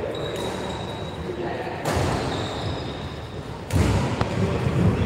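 Badminton racket strings striking a shuttlecock twice, sharp smacks about two seconds apart in a rally, over low thuds of players' feet on the court.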